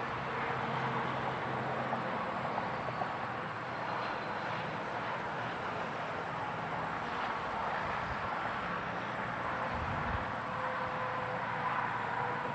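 Continuous traffic on an interstate highway heard close up: tyre and engine noise from cars and trucks passing in a steady stream, with passing vehicles swelling and fading.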